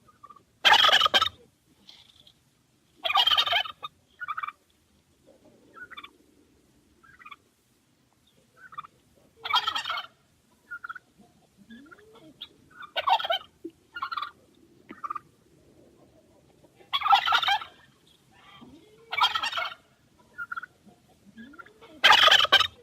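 Turkey gobbling: about seven loud gobbles spread through the stretch, each under a second long, with shorter, quieter calls between them.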